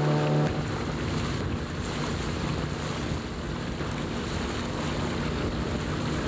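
Wind buffeting the microphone over a steady rush of water from a boat. A steady motor hum stops abruptly about half a second in.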